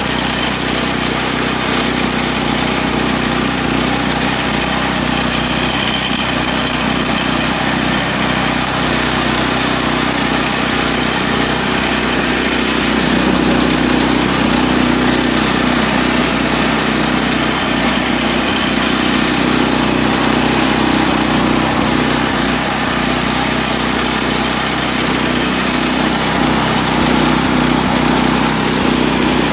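Harbor Freight Predator 212cc Hemi single-cylinder engine on a two-stage snowblower, running steadily after a choked start.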